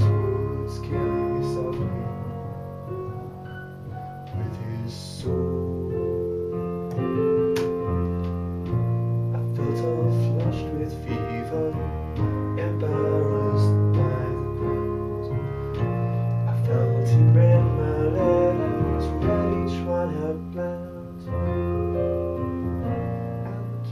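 Piano sound on a keyboard, played as held chords over a low bass line that changes every second or two.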